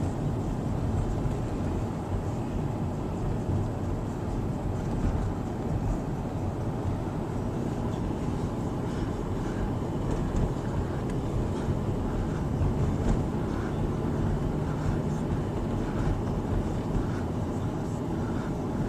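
A car driving: steady road and engine rumble heard from inside the cabin.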